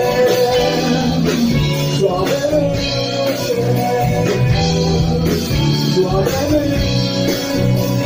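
Live rock band playing a slow ballad: electric guitars, bass and drums, with a long held melody note over sustained chords.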